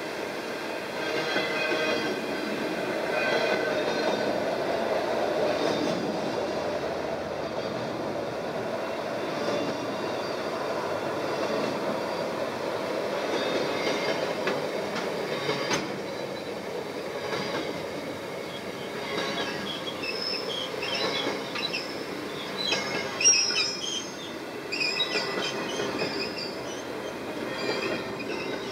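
Container freight train wagons rolling steadily past with a continuous rumble and the clatter of wheels over the rail joints. Short, high-pitched wheel squeals join in during the later part, the loudest a little after two-thirds of the way through.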